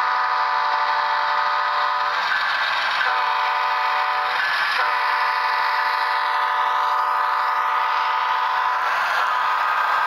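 Diesel locomotive air horn sounded by the HO-scale BNSF model train's sound system: a series of blasts, the last one about four seconds long. Steady running noise from the passing train lies underneath.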